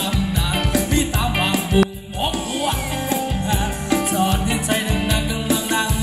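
Thai ramwong dance music from a band: a steady, pulsing drum-and-bass beat under a wavering melody line, with a brief dip in sound about two seconds in.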